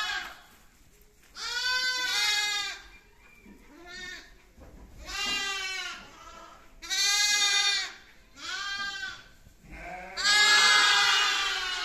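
Young lambs bleating, about six separate calls each roughly a second long, the loudest and roughest one near the end.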